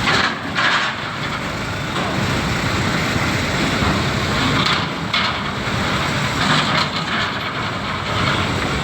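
Diesel engines of buses and trucks running as they drive off a ferry, a steady low rumble with a few short bursts of hiss, about half a second in and again near five and seven seconds.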